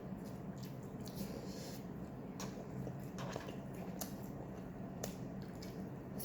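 Someone biting into and chewing Korean-style fried chicken: scattered wet mouth clicks and smacks over a low steady hum.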